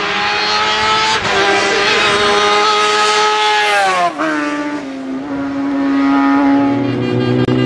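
Gloria single-seater racing car's engine running at high revs. The note drops sharply about four seconds in and then holds steady at lower revs.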